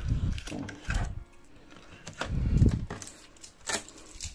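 Handling noise: a few dull thumps and light clicks, the loudest thump about two and a half seconds in.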